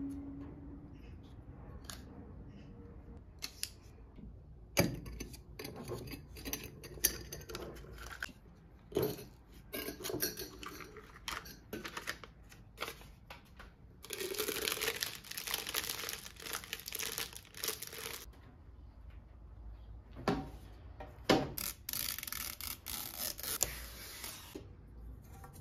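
Household items being handled and set down, with scattered small clicks and knocks. Packaging crinkles and tears, in a four-second stretch about halfway through and a shorter one near the end.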